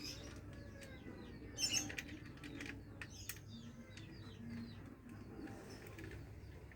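Small birds chirping in the background: short, high chirps, with a louder cluster about two seconds in, among scattered light clicks.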